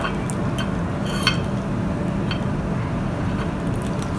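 A few light clicks and a small clink from a hot glue gun and cable connector being worked by hand, over a steady low hum.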